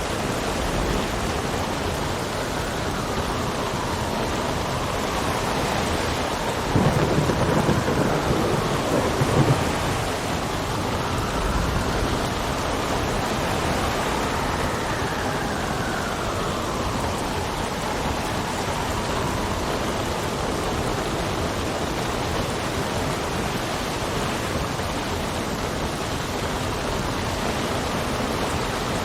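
Sea storm: a steady rush of rain and wind, with a rumble of thunder about seven seconds in and a faint whistle of wind that rises and falls in pitch.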